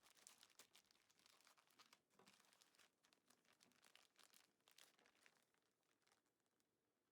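Faint crinkling of a plastic bag being handled, many small crackles that thin out and fade after about five seconds.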